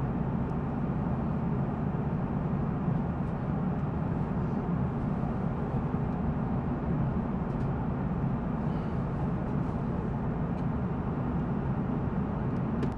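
Steady cabin noise of an Airbus A330-300 airliner in cruise: an even rush of engine and airflow noise heard at a window seat, heaviest in the low range.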